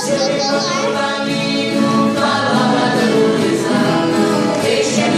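Several voices singing a caipira cururu song together in held notes, over viola caipira accompaniment.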